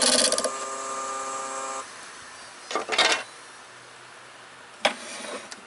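Turning tool cutting into the spinning wood of a lathe-mounted block for about half a second, then the wood lathe's motor hum alone, which drops away about two seconds in as the lathe is switched off. A few sharp knocks follow, near three seconds and again near five seconds.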